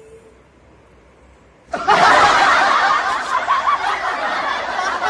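Loud laughter starts suddenly about two seconds in, after a quiet opening, and carries on.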